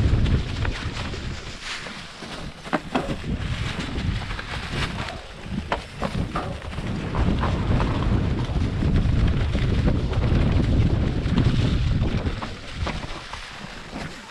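Wind buffeting the helmet-mounted camera's microphone during a fast mountain-bike descent, with the tyres running over dry leaves and dirt. Sharp clicks and rattles from the bike over bumps break through now and then.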